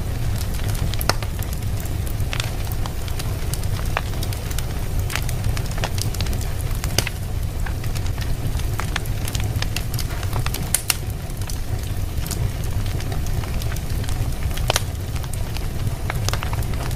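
Fire burning in a fireplace, crackling with irregular sharp pops and snaps over a steady low rumble.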